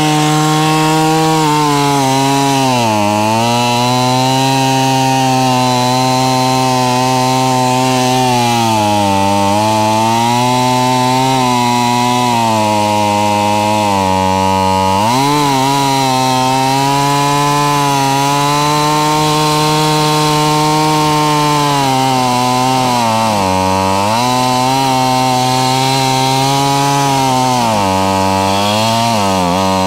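Small two-stroke engine of a Craftsman chainsaw running hard, its engine speed sagging and picking back up several times. It is being run on straight gas with no oil mixed in and no air filter, and has sawdust in it and smoke coming from the carburetor.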